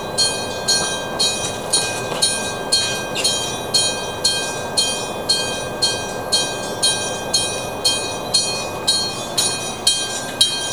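Electric-bell level crossing warning: a real bell struck by an electric hammer about twice a second, each strike ringing on, with a train's running noise underneath.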